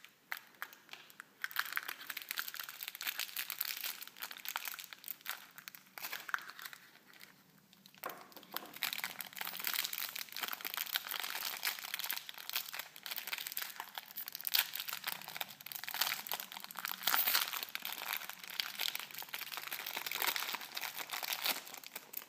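Thin clear plastic wrapper crinkling as it is handled by hand and torn open, with a brief pause about a third of the way in.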